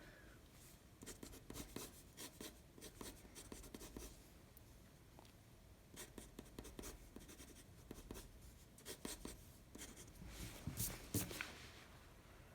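Faint, quick sketching strokes of a drawing tool scratching on the drawing surface, in short runs with a lull of about two seconds near the middle.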